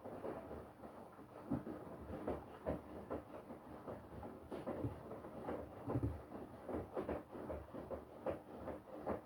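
Front-loading washing machine drum turning during the wash cycle, tumbling wet laundry: a busy churn of irregular soft knocks and sloshing.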